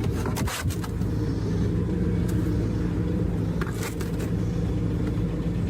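An engine running steadily at an even pitch, with a few short knocks near the start and again about four seconds in.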